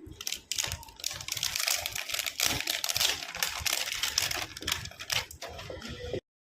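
Rapid clicking and rustling of a colour set's packaging being handled and opened, a dense run of small taps and crackles that cuts off suddenly near the end.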